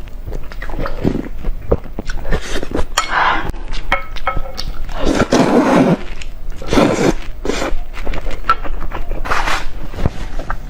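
Close-miked eating sounds: chewing and mouth clicks, with several louder, longer noisy bursts.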